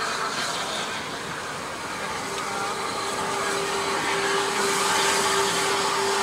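Steam locomotive 34053, a rebuilt Bulleid Battle of Britain class Pacific, hissing steam steadily as it drifts slowly past without exhaust beats. The hiss grows louder as it approaches, and a steady humming tone cuts back in about two seconds in.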